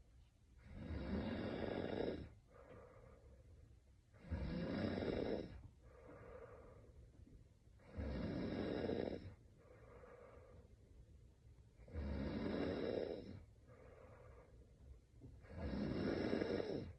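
A young woman snoring in her sleep: five loud, rough snores about every four seconds, with a softer breath between each.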